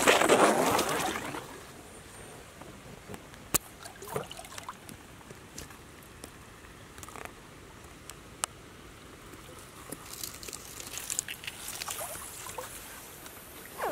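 Rustling of dry leaves and grass stems being pushed through, loudest in the first second or so, then a few sharp clicks and renewed rustling near the end.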